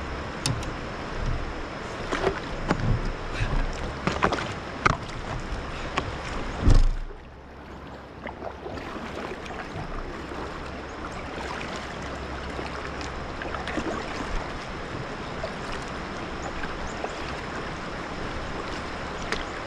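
Moving river water around a kayak, a steady rushing noise, with a string of knocks and splashes in the first seven seconds, the loudest just before the seven-second mark; after a brief quieter spell the steady water sound goes on.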